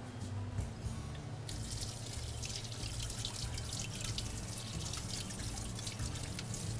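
Shawarma sandwich sizzling and crackling in hot oil in a pan as it is pressed to cook, the crackle picking up about a second and a half in.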